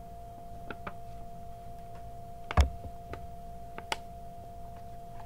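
Hands handling a plastic comic book sleeve and its backing, trying to flatten a bent-over flap. It gives a few light clicks and taps and one louder knock about two and a half seconds in, over a steady faint electrical hum.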